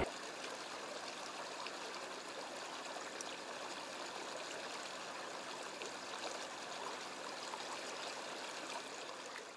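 Shallow floodwater flowing steadily, a faint even rush of running water with small trickling ticks.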